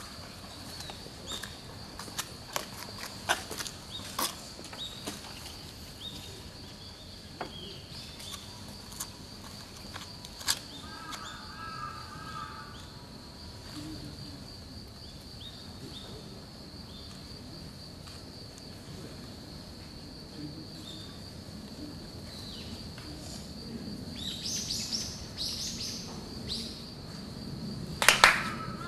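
Quiet outdoor ambience with birds chirping and a steady thin high tone, broken by a few scattered sharp clicks. Near the end come a couple of loud, sharp claps.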